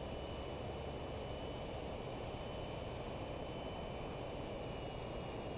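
Steady drone of a Piper Cherokee's cabin in flight, single-engine propeller and airflow noise heard through the intercom recording, with faint electrical whine and a faint high chirp repeating about once a second.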